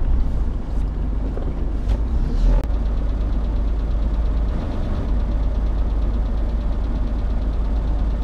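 Off-road SUV's engine idling steadily while the vehicle stands still, heard from inside the cab, with a few light knocks in the first three seconds.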